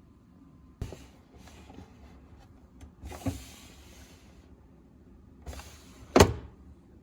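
Containers being handled and set down while a fridge is organized: three knocks, the loudest about six seconds in, with rustling and sliding noise between them.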